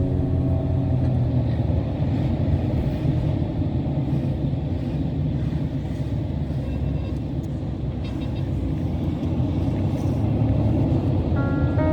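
Steady low rumble of a motor vehicle on the move, road and engine noise without a clear pitch.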